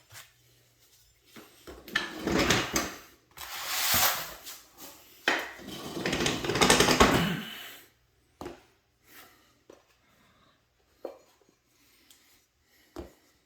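Positioning squares being handled and slid against a wooden surface: several seconds of rubbing and scraping, then a few light knocks as they are set down.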